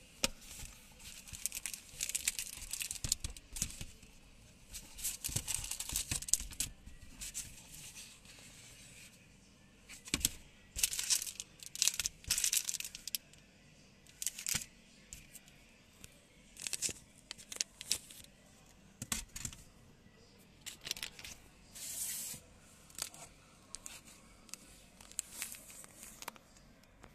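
Hands handling a leather sunglasses case and a plastic-wrapped cleaning cloth: irregular bouts of plastic crinkling and rustling, with a few sharp clicks and soft knocks in between.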